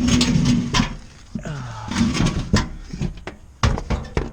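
Sharp knocks, clicks and clunks of tools and parts being handled while working on a furnace blower motor, with several close together near the end.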